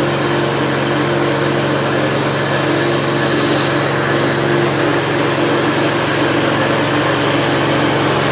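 KD350-type mini corn-cracking and rice-hulling machine running at a steady speed: an even engine drone with a constant hiss over it.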